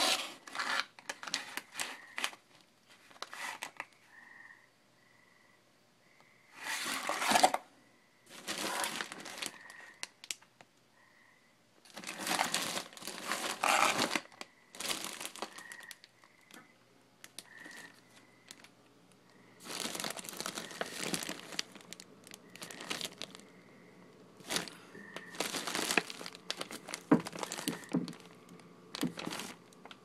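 Plastic food packaging crinkling as packages are handled and moved about in a cabinet, in repeated bursts with quiet gaps between them.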